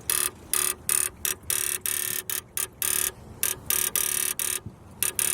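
An electrical relay in a Subaru WRX's engine bay buzzing in quick, uneven bursts, about two to three a second, with the key in the ignition and the engine not running. It is the sign of an intermittent electrical fault that the owner is trying to trace.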